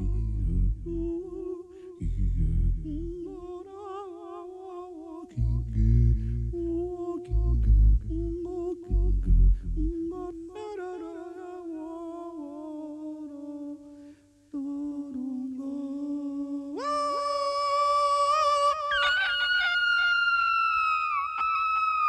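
A solo voice hums a slow, wavering line, over several deep thuds in the first ten seconds. About seventeen seconds in, the voice leaps to a high, bright held tone with many overtones, then steps higher again a couple of seconds later.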